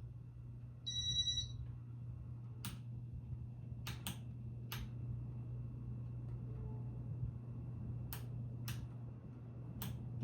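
Steady low hum of a Casablanca Ventura ceiling fan's motor running, with a short electronic beep about a second in and a handful of sharp clicks scattered through the rest.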